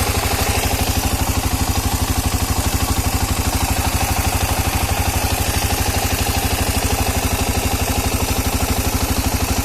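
Engine idling steadily with a fast, even knock, the engine knock the recording was made to show.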